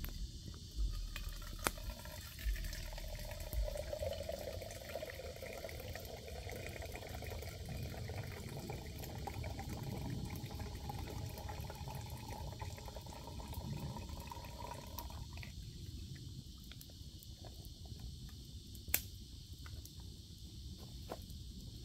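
Water poured in a steady stream from a bottle into a metal cooking pot, rising in pitch as the pot fills, then stopping abruptly about two-thirds of the way through. A wood campfire crackles with small pops throughout, and one sharp pop comes near the end.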